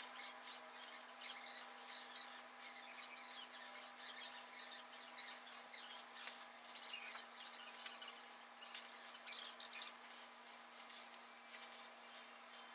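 Quiet room tone: a steady low hum with faint, scattered small clicks and chirp-like ticks.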